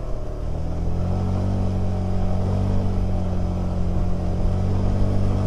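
Honda Click 125 scooter's single-cylinder engine running steadily under load as it climbs a steep grade carrying two riders and luggage. Its pitch rises slightly about a second in and then holds.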